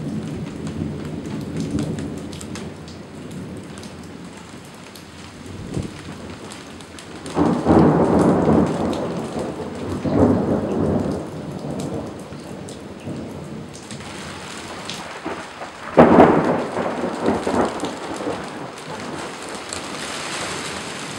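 Thunderstorm: steady rain hissing throughout, with rolling thunder. A long rumble comes about a third of the way in, and a sharper clap starts suddenly about three-quarters of the way in and rumbles on for a few seconds.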